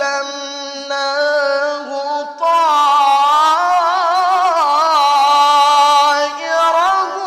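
A male qari reciting the Quran in melodic tilawah style, drawing out one long ornamented phrase with a wavering, trilled pitch. About two and a half seconds in, the voice steps up higher and louder and holds there before easing down near the end.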